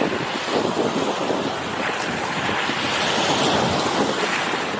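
Small waves breaking and washing up on a sandy shore, a steady rushing surf that swells a little midway, with wind buffeting the microphone.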